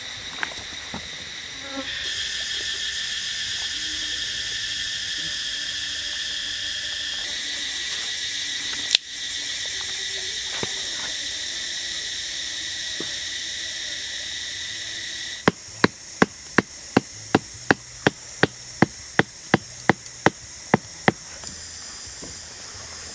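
Loud, steady, high-pitched buzzing of an insect chorus, shifting slightly in pitch and loudness a few times. About two-thirds of the way in, a run of about fifteen sharp, evenly spaced clicks comes in, roughly three a second.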